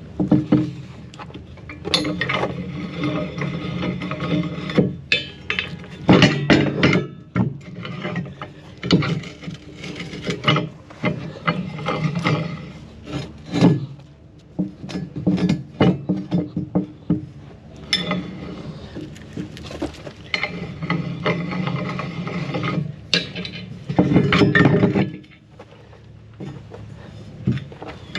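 Steel pallet fork clamps being worked onto a tractor's front-loader bucket: irregular metal scraping and rubbing with sharp clicks and clanks, in repeated bursts of a second or two.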